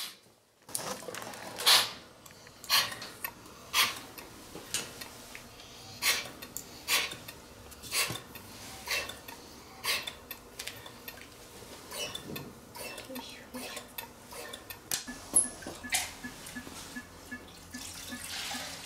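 Sharp metallic clinks and clicks from equipment being handled on the steel table while the dog is intubated and hooked to the breathing circuit, about one a second at first, then fainter and less regular.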